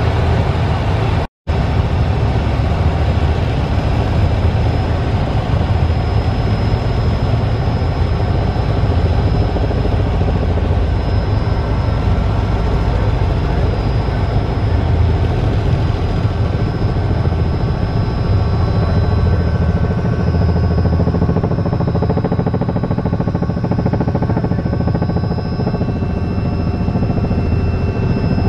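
Helicopter rotor and turbine noise heard from inside the cabin in flight: a loud, steady low rumble with a thin high whine over it. The sound cuts out for a split second about a second and a half in.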